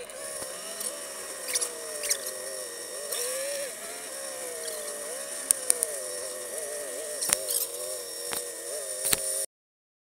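Off-road 4x4's engine running at changing revs, heard from inside the cab, with sharp knocks and rattles as the vehicle bumps over rough dirt track. The sound cuts off suddenly near the end.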